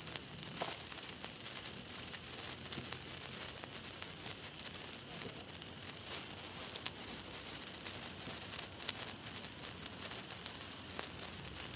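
Black Cat #8 gold wire sparkler burning: a steady fizzing hiss with many sharp little crackles scattered through it.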